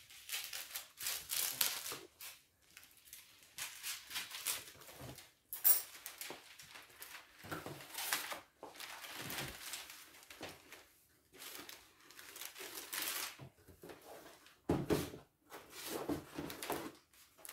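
Shiny metallic gift wrapping paper crinkling and rustling in irregular bursts as it is folded around a large cardboard doll box.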